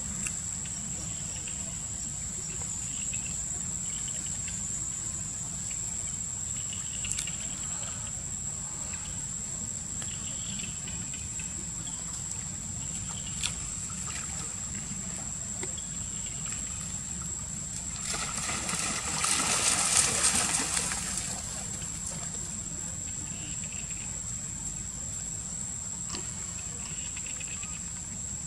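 Insects shrilling, one steady high-pitched tone over a low steady rumble, with faint short chirps now and then. About two-thirds of the way through, a louder, harsh sound lasts about three seconds.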